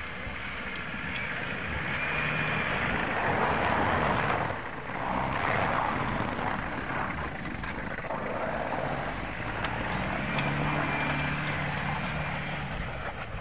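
Mitsubishi Delica Space Gear van's engine running as it drives over rough, snowy off-road ground, the sound swelling and easing several times, with wind noise on the microphone.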